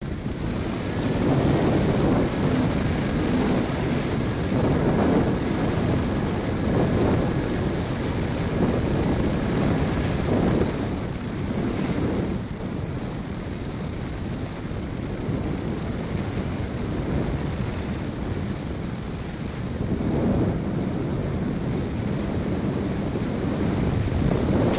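Air rushing over the onboard camera microphone of a radio-controlled model plane in flight, over a steady high whine from its motor and propeller. The rushing swells and eases every few seconds as the plane manoeuvres.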